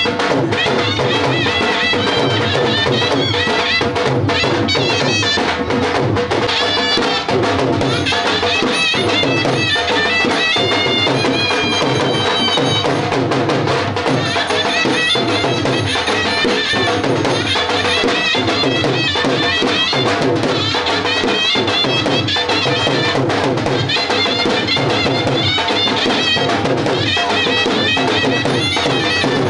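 Lively Indian folk music with a steady drum beat, a held drone and a wavering melody line.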